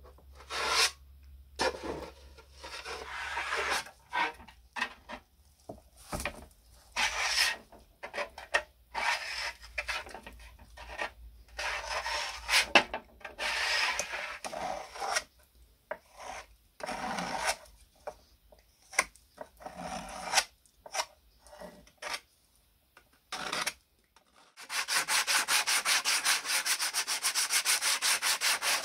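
Hand sanding with sandpaper over filler and primer on sheet-metal parts: uneven rubbing strokes with short pauses. About 25 s in, it turns to fast, steady back-and-forth rubbing.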